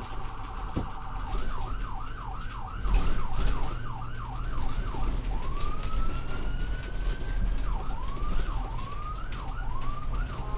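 Ambulance siren changing modes: a fast warble, then repeated quick up-and-down sweeps, a long slow rising wail that drops off suddenly, and more sweeps near the end. A steady low rumble runs underneath.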